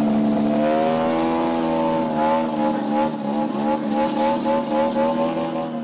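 Large-scale AJ Slick radio-controlled aerobatic airplane hovering nose-up on its propeller's thrust. Its motor gives a steady note that starts wavering up and down about two seconds in as the throttle is worked to hold the hover.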